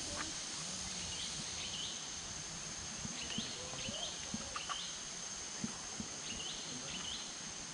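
Tropical forest ambience: birds chirping in short rising calls, often in pairs and repeated every second or so, over a steady high-pitched insect drone, with a few soft taps of footsteps.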